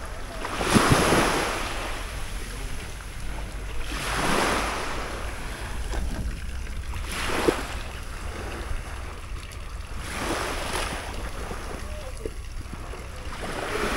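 Small waves washing up onto a sandy beach, a swell of surf about every three seconds, with wind rumbling on the microphone.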